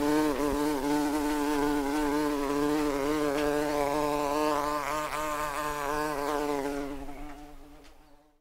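Wasps buzzing: a steady droning hum whose pitch wavers slightly, fading out near the end.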